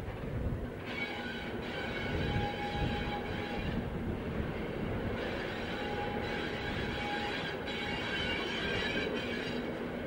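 Three Class 73 electro-diesel locomotives moving slowly along curved station track. A steady low rumble runs throughout, with high wheel squeal from the tight curve. Two longer squeal tones stand out, one between about two and three and a half seconds in and one around six to seven seconds in.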